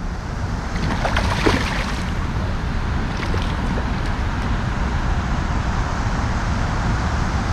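Steady outdoor background noise: a low rumble with a hiss over it, holding level throughout.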